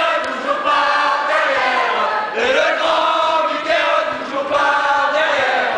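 A crowd of students singing a chant together in a lecture theatre, loud, in drawn-out sung phrases of a second or two each.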